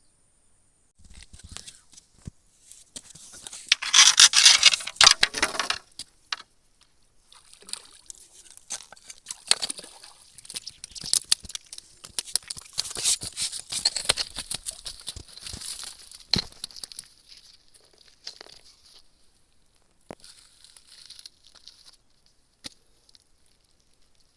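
Irregular rustling and crinkling with scattered sharp clicks, loudest about four to six seconds in and again through the middle.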